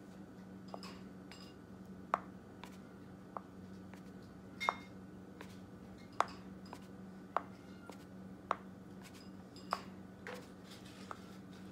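End of a paintbrush handle tapping as it is dipped into a plastic paint palette and dabbed onto the page to make dots: short, light clicks about once a second, over a faint steady hum.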